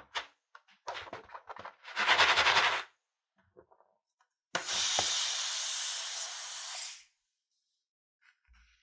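Fingers rubbing a latex balloon, with a short loud rub about two seconds in. Then scissors snip the balloon's knotted neck and air hisses out of the balloon for about two and a half seconds, easing slightly before it stops.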